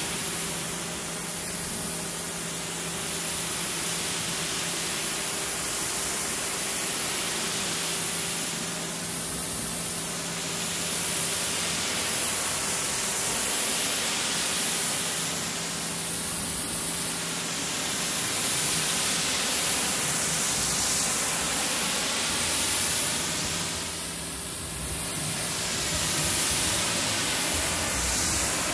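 Pressure washer spraying a steady high-pressure jet of water through a 15-degree nozzle against the flat side of an RV, rinsing it down, with a steady hum underneath.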